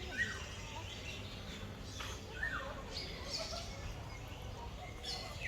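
Birds calling in an aviary, repeated falling whistled calls about every two to three seconds, with shorter high chirps in between, over a steady low background rumble.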